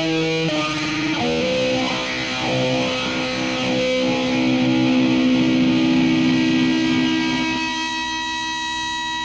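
Distorted electric guitar played through effects with heavy reverb. The notes change a few times in the first second or so, then a chord is left ringing out to the end.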